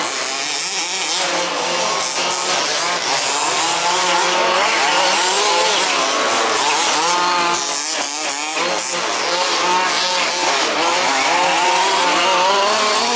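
Several 1/5th-scale RC buggies racing, their small two-stroke petrol engines revving up and down over one another.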